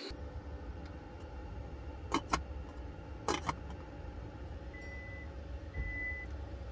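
Two sharp clicks, then two short beeps about a second apart from a Kia Carnival's power-tailgate warning as the tailgate is set to close from the key fob, over a steady low hum.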